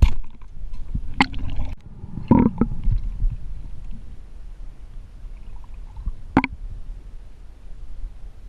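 Low rumbling water noise with a few scattered sharp knocks and clicks, the sound of a camera moving underwater during spearfishing.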